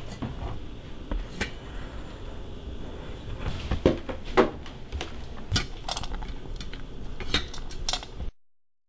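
A dog's plastic cone collar knocking and clinking against a stainless steel food bowl as it tries to eat: a string of irregular knocks and clinks, the loudest about halfway through, stopping suddenly near the end.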